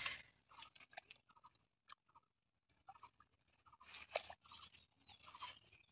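Near silence with faint, scattered crackles and clicks of hands digging in wet mud and weeds at the mouth of a hole, with one sharper click about four seconds in.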